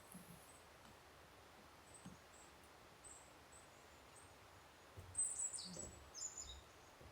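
Small songbirds giving short, high chirps every second or so, with a quick cluster of louder descending calls about five seconds in, over faint outdoor ambience.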